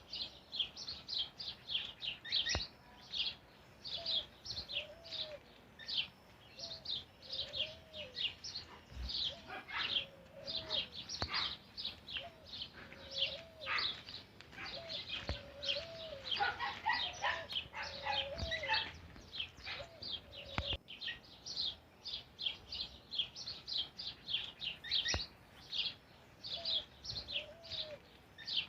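Several birds calling together: a dense run of quick high chirps, each dropping in pitch, over a lower call that rises and falls and repeats every second or so, busiest in the middle.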